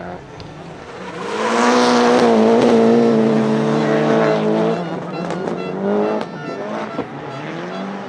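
Turbocharged four-cylinder rally car engine held at high revs for several seconds as the car passes close, the pitch wavering slightly before the note drops away. A few sharp cracks follow, then an engine revs up again near the end.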